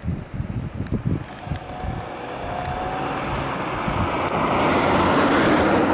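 Koleje Mazowieckie electric multiple unit running past on the track: a rising rush of wheels on rails that is loudest near the end. Wind buffets the microphone in the first second or so.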